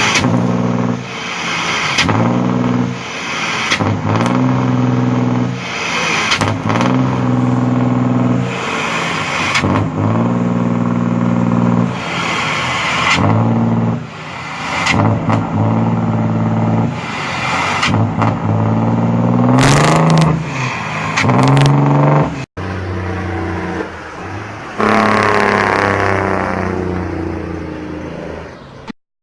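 Vehicle engine revving hard over and over, its pitch climbing and then dropping away every second or two, with a couple of abrupt cuts in the sound near the end.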